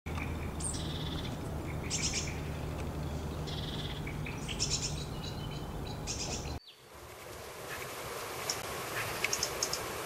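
Small garden birds chirping and twittering over a steady low hum. About two-thirds of the way through the sound cuts out abruptly, then birdsong fades back in without the hum.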